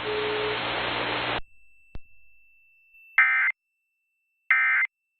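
Emergency Alert System end-of-message signal. A hiss of static cuts off about a second and a half in, then a click, then two short, shrill bursts of SAME digital data tones about 1.3 seconds apart.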